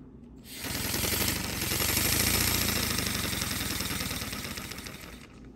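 Paper boxer-twin air engine driven by breath blown through a CPVC pipe, running with a fast rattle over the rush of blown air. It starts about half a second in, builds to its loudest about two seconds in, then fades as the breath runs out.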